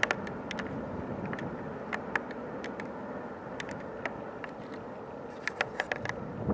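Double-stack intermodal freight train rolling past with a steady rumble of its cars. Irregular sharp clicks and clanks of the wheels on the rails run over it.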